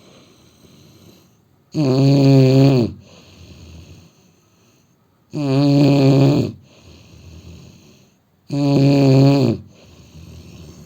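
Man snoring in his sleep: three loud, pitched snores about three and a half seconds apart, each lasting a little over a second, with quieter breathing between them.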